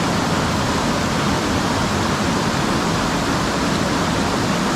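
Steady rush of water pouring over a small river waterfall.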